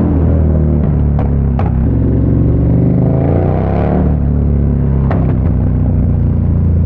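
KTM 1290 Super Duke R's V-twin engine running through an Austin Racing V3 150 mm exhaust while riding. The revs climb for about a second and a half, just past the middle, then drop back as the gear changes. There are a few short sharp cracks, two early on and one after the revs fall.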